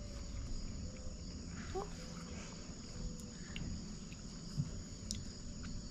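A steady, high-pitched chorus of insects chirring.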